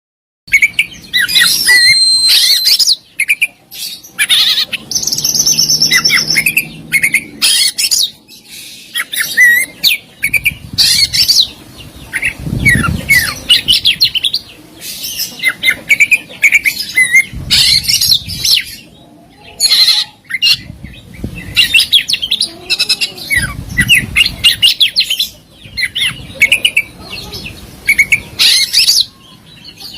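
Oriental magpie-robin (kacer) singing a fast, varied song of whistles, chirps, trills and harsh squawking notes, the kind of masteran song that is full of mimicked phrases ('isian') and sharp rapid bursts ('tembakan'). It starts about half a second in, after a brief gap of silence.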